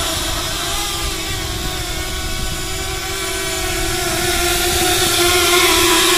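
7-inch FPV quadcopter's brushless motors and propellers whining steadily, growing louder from about three seconds in as the drone lifts off and hovers.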